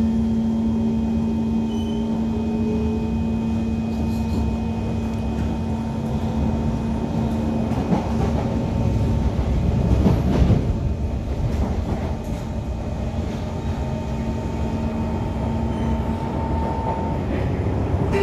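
Cabin noise inside a moving SMRT C151 metro train: a steady electric motor whine over continuous wheel-on-rail rumble, swelling louder about halfway through.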